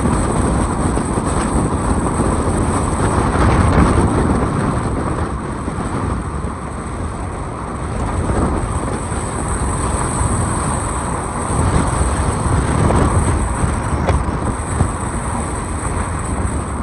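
Car driving along a road: a steady rumble of tyres and wind noise that swells and eases, with a thin high hiss above it.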